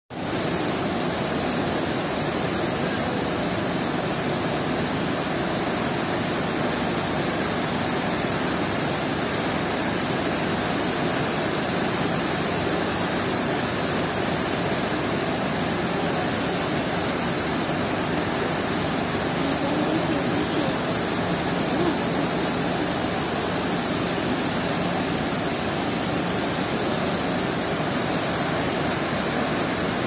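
A broad, low waterfall about 4–5 m high and the white-water rapids below it, its water rushing steadily over the rocks.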